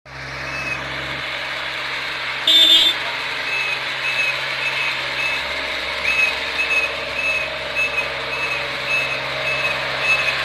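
Road roller's engine running steadily, with a reversing alarm beeping about twice a second from about three and a half seconds in. A brief loud high-pitched blast sounds about two and a half seconds in.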